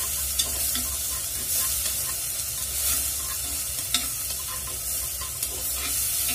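Dried shrimp sizzling as they stir-fry in an unglazed clay pot, stirred with a wooden utensil that knocks lightly against the pot a few times.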